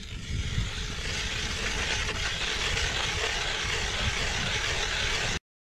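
Hand-cranked ice auger's spiral blade boring into thick ice: a steady scraping, grinding hiss that cuts off suddenly near the end.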